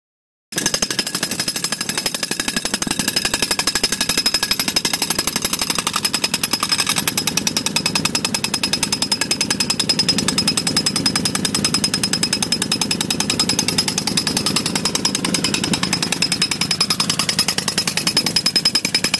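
Pneumatic impact mole (moling machine) hammering through the soil under the concrete, driven by compressed air. It starts abruptly about half a second in and keeps up a rapid, steady hammering.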